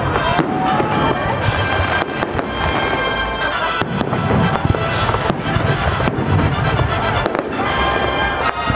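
Fireworks display: shells bursting in a rapid, uneven volley of bangs with crackling, over a steady low rumble. Music plays alongside, its tones standing out most at the start and near the end.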